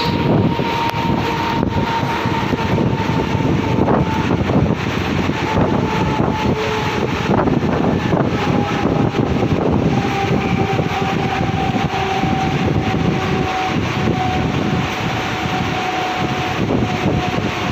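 Mumbai suburban local electric train heard from on board, running along the track with a steady loud rumble and rattle. A faint whine slowly falls in pitch.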